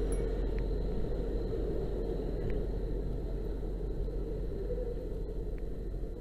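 Engine running steadily, a low continuous rumble.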